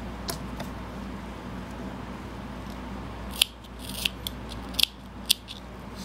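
Scissors snipping: a quick run of about six sharp clicks starting a little past halfway.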